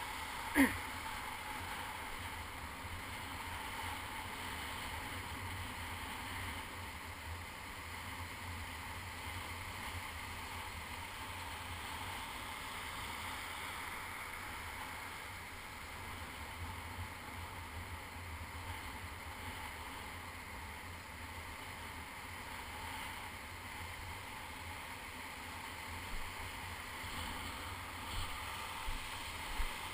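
Shallow surf washing and fizzing around a camera held at water level, a steady rushing wash. One sharp hit comes about half a second in, and a few small knocks near the end.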